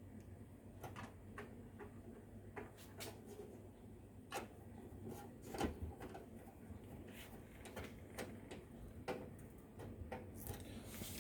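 Faint, irregular clicks and light knocks of hands handling parts and cables inside a metal computer cabinet, a few sharper taps about halfway through.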